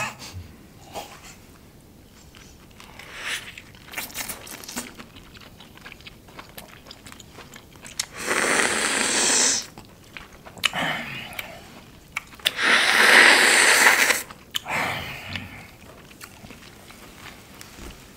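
Close-up eating of raw lobster tail: biting and chewing, with two long, loud noisy mouth sounds about 8 and 13 seconds in, the second the loudest.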